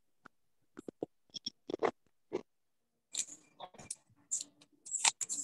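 A scatter of short, irregular clicks and crackles close to the microphone, about a dozen over four seconds.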